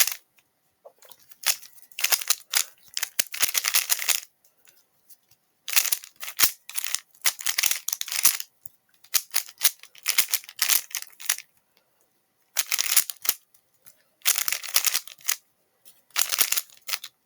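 Plastic Rubik's cube being turned quickly by hand: runs of rapid clacking turns, each lasting one to two seconds, broken by short pauses.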